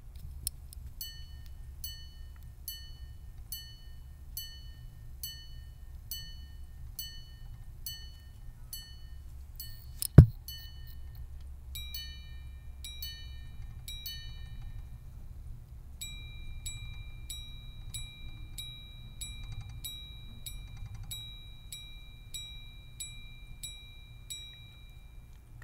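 Minute repeater of a platinum-cased IWC Grande Complication striking the time, set to about 12:59, on its gongs. First a run of lower strikes for the hours, then low-high pairs for the quarters, then a longer, quicker run of higher strikes for the minutes, each note ringing briefly. A single sharp knock about ten seconds in, between the hours and the quarters, is the loudest sound.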